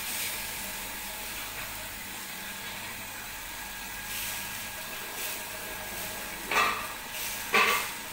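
Tamban sardines sizzling on a hot ridged grill pan over a gas burner, a steady hiss, with two short metal clacks of tongs against the pan about a second apart near the end.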